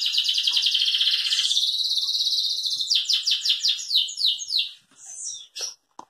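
A small songbird singing: a fast, high trill of rapidly repeated notes for the first two and a half seconds, then a run of quick separate chirps, about six a second, that stops shortly before the end.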